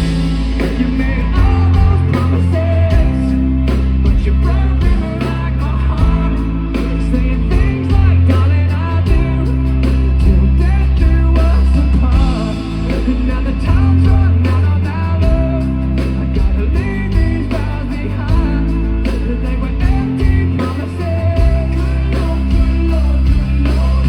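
Live rock band playing loudly, with a heavy bass line under guitars and singing.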